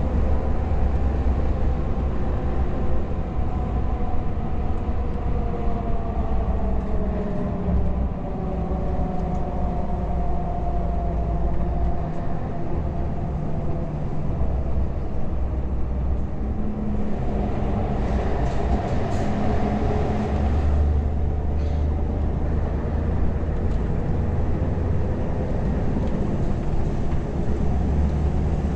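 Scania R580's V8 diesel engine and tyre noise heard from inside the cab of the loaded truck, a steady drone with the engine note slowly drifting in pitch. A louder rushing for a few seconds about two-thirds of the way through, as the truck passes through a short rock tunnel.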